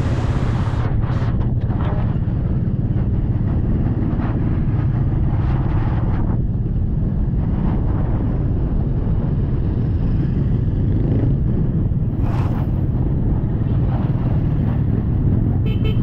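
Motorcycle engine running steadily while riding, heard from the rider's seat as a low, even drone.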